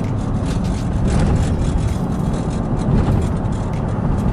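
Road and engine noise heard inside a moving truck's cab: a steady low rumble.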